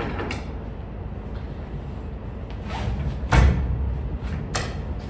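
Cargo strap being pulled taut and fastened across an empty trailer. Its metal end fitting knocks against the trailer wall, with one loud hollow clang, which rings on in the box, about three seconds in, and a lighter knock about a second later.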